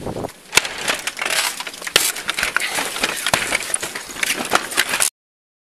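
Rapid knocks, scrapes and clatter as officers push through a wooden garden gate, picked up close on a body-worn camera. The sound cuts off suddenly near the end.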